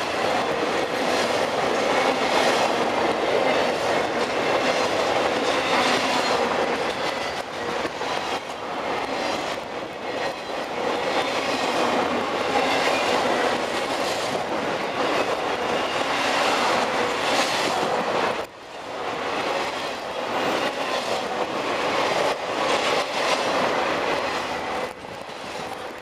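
Intermodal freight cars carrying highway trailers rolling past close by, their steel wheels running on the rails in a steady noise, with a brief drop in level about two-thirds of the way through.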